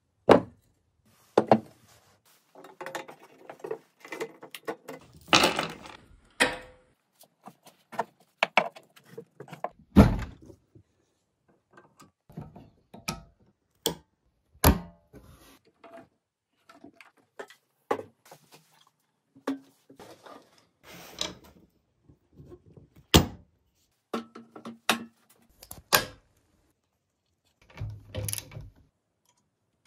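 Hand tools and metal parts being handled: irregular knocks, clicks and clinks, with a handful of louder knocks among quieter rattling.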